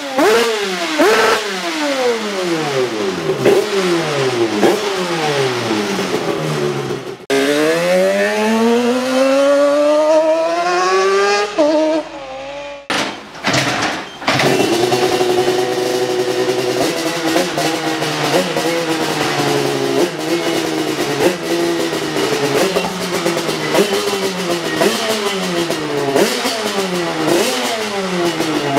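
Yamaha TDR 385 YPVS parallel-twin two-stroke engine, freshly fitted with a 2-into-1 exhaust, being revved with repeated throttle blips: the revs shoot up and fall back again and again. About seven seconds in, it is held for one long, steady climb in revs lasting several seconds. After a brief break it goes back to quick blips.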